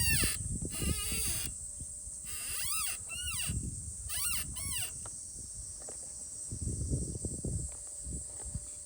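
Yamaha Serow 250 rear suspension linkage squeaking as the suspension works: about six squeaks, each rising then falling in pitch, over the first five seconds, with low knocks under them and more low knocks near the end. The squeak remains even though the linkage has been overhauled.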